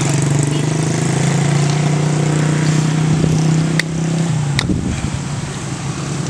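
A motor vehicle engine running steadily with a low hum that weakens about four seconds in. Two sharp clicks come close together around that point.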